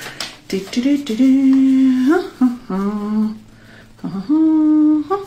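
A woman humming a short tune of a few long held notes, stepping down and then up again in pitch, with a short pause before the last note.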